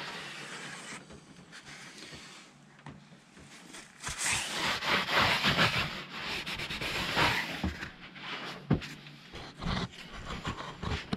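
Paper towel rubbed back and forth over a rubber interlocking garage floor mat, a scratchy wiping noise lasting about four seconds in the middle, followed by a few scattered knocks.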